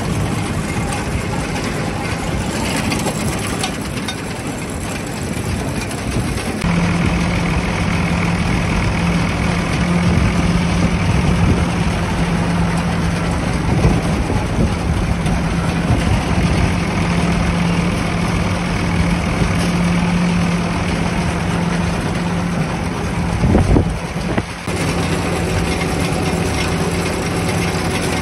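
Farm machinery running steadily: a tractor engine driving the unloading wagon's floor conveyor and the elevator, a constant mechanical hum. The sound changes abruptly about seven seconds in, and there is a brief louder surge a few seconds before the end.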